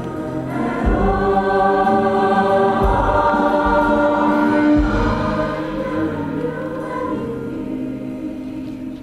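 Mixed show choir singing a slow ballad in sustained, held chords, growing softer toward the end.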